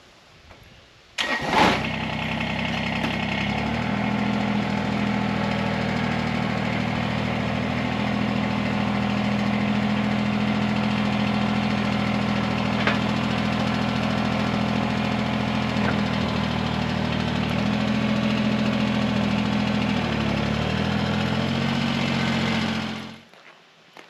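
Compact tractor engine cranking and catching about a second in, then running steadily, with a slight change in engine speed near the end before it cuts off.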